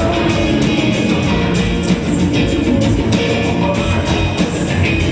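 Rock band playing: electric guitar over bass and a drum kit keeping a steady beat.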